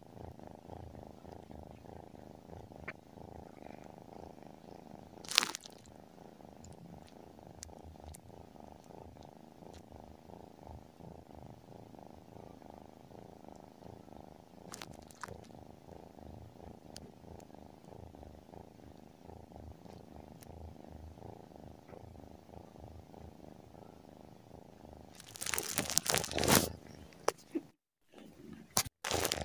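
Tabby cat purring steadily while being scratched under the chin. There is a sharp click about five seconds in, and a louder burst of noise near the end, followed by a brief drop-out.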